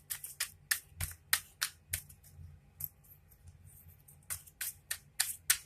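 Tarot cards being shuffled by hand: a string of quick, irregular snaps and flicks of card stock, with a short lull about halfway through.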